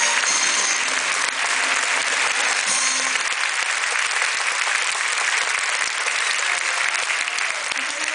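Large audience in the stands applauding steadily.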